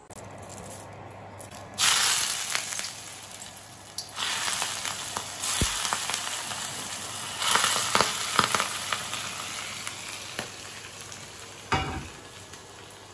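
Hot sauce poured from a wok over fish in a hot electric roasting tray, sizzling loudly and swelling in several surges as more liquid hits the pan. A knock near the end.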